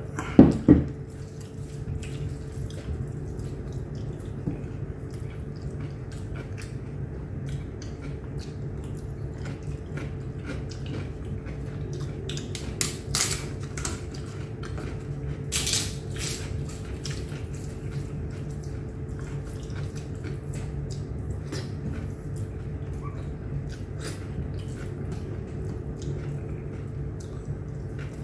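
Eating by hand: fingers squishing and mixing biryani rice on a plate, with small wet clicks and chewing, over a steady low hum. A sharp knock sounds just after the start, and there are louder crackly bursts twice in the middle.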